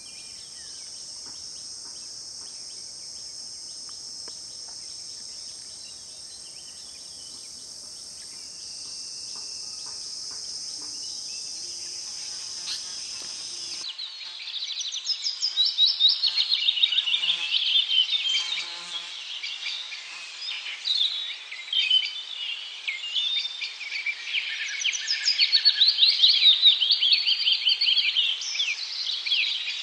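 Steady high-pitched insect drone. About halfway through it gives way abruptly to loud, busy bird calls: quick runs of sharp falling notes, many birds calling over one another.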